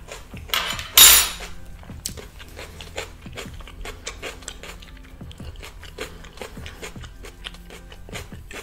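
Close-miked eating of crispy fried chicken: a loud crunch about a second in, then chewing with many small crackling clicks.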